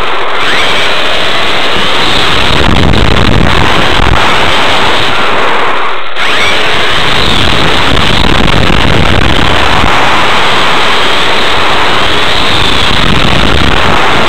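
Onboard sound of a Kyosho Inferno GT RC car with a Novak brushless motor driving on asphalt: a loud, overloaded rush of wind, tyre and drivetrain noise, with faint motor whines rising and falling as the throttle changes. The noise dips briefly about six seconds in.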